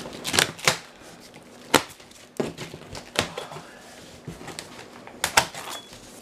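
Packing tape on a cardboard shipping box being slit with a small knife and ripped, giving several short sharp rips and crackles. The cardboard flaps are pulled open near the end.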